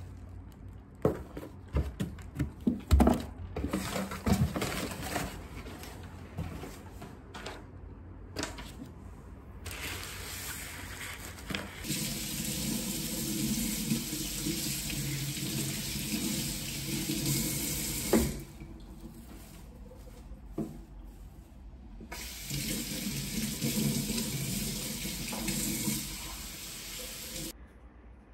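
First, crinkling and knocking as a cardboard box and plastic wrap are handled. Then a kitchen tap runs into a sink for about eight seconds, stops, and runs again for about five seconds while the soil is rinsed from a potted plant's roots.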